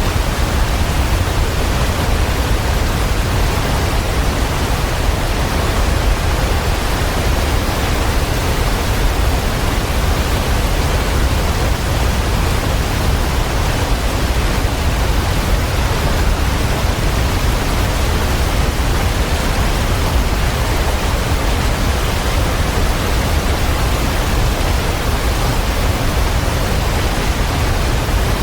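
Running water rushing steadily: a constant, unbroken noise that is heaviest in the low end.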